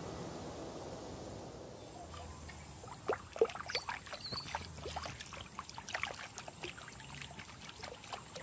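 Background music tails off, then water splashes and laps in small irregular bursts, with a thin steady high tone behind it.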